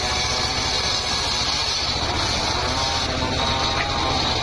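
Homemade table circular saw running steadily, its large blade ripping a plank from a teak log.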